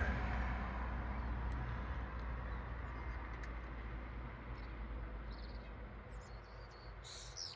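A car passing on the street, its tyre and engine noise fading steadily as it drives away. A few short bird chirps come in near the end.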